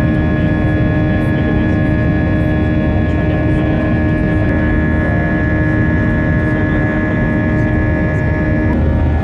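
Airliner cabin noise at a window seat: the turbofan engines and airflow make a steady rumble with a few held whining tones, one of which drops out near the end.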